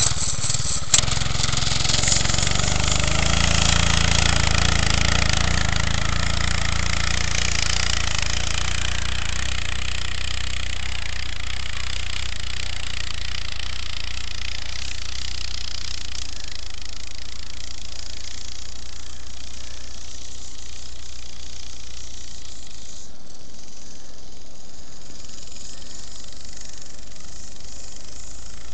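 Mini bike's small engine starting about a second in and then running steadily.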